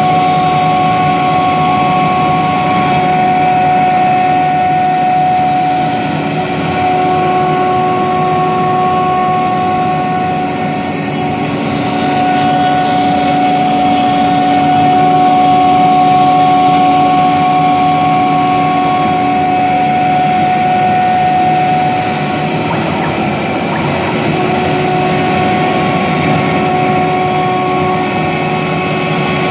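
CNC gantry wood router's spindle running steadily as it mills wood: a continuous whine of several fixed tones over a dense cutting noise. Some tones fade and return as the load changes, with a rougher, noisier stretch in the last third.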